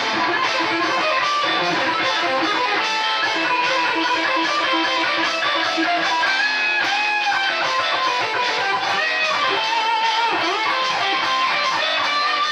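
Sunburst single-cut electric guitar playing a fast improvised lead solo in A minor, with bent notes, over a backing track.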